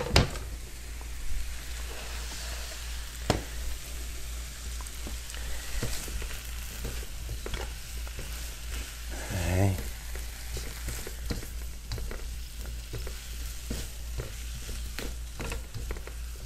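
Brussels sprouts and red pepper sizzling in a hot wok as they are stirred with a silicone spatula, with scattered light knocks of the spatula against the pan. A brief voice sound from a person about halfway through.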